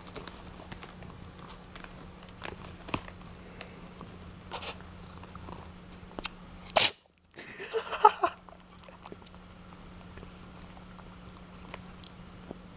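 A cat making small clicking mouth sounds, then one sharp, loud sneeze about seven seconds in, followed by about a second of snuffling.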